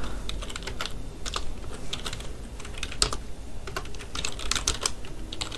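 Typing on a computer keyboard: quick, irregular keystrokes.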